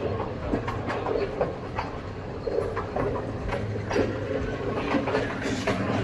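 Railway carriage rolling along the track, heard from aboard: a steady low rumble with wheels clacking irregularly over the rail joints, several knocks a second.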